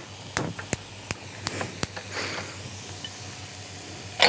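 A few light clicks and knocks of a bowl and a large cooking pot as sauerkraut is tipped from the bowl into the pot, with a louder knock near the end, over a faint steady hiss.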